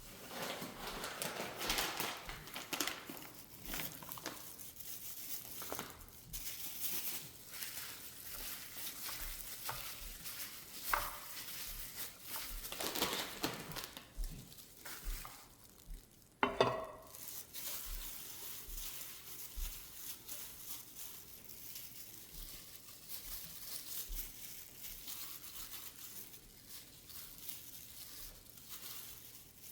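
Kitchen food-preparation sounds: irregular crinkling, rustling and light clatter of handling food and utensils. A brief ringing clink comes about halfway through.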